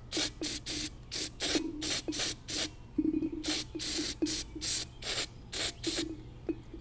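Aerosol carburetor cleaner sprayed in short, quick bursts onto a plastic carburetor float, a hiss about three times a second that stops near the end.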